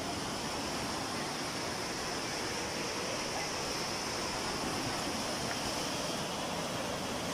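Surf washing onto a sandy beach: a steady hiss of breaking waves.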